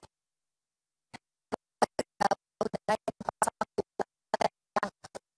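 A reporter's voice over a failing live broadcast link, chopped into short clipped fragments with dead silence between them: the connection is dropping out. It is silent for about the first second before the fragments begin.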